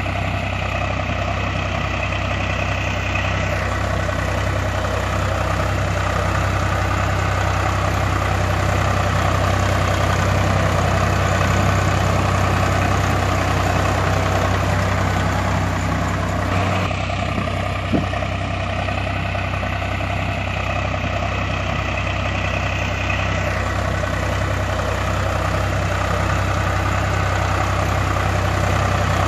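Truck engine idling steadily, a low drone with an even pulse. The sound changes abruptly about seventeen seconds in, with a short click just after.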